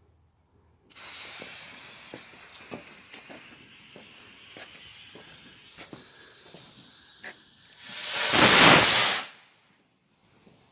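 Firework rocket's fuse burning with a hiss and small crackles for about seven seconds, then the rocket launching with a loud rushing whoosh about eight seconds in that cuts off after about a second.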